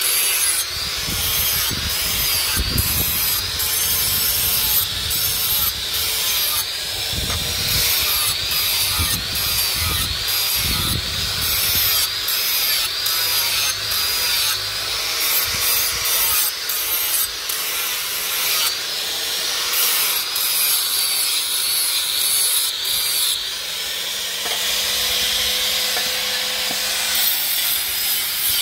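Electric angle grinder grinding the steel blade of a forged cleaver, metal on metal. Its whine dips and rises again about once a second as the disc bites into the steel.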